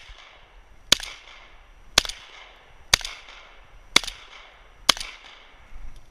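Benelli M4 12-gauge semi-automatic shotgun firing five shots at a steady pace of about one a second. Each shot is followed by a short echo.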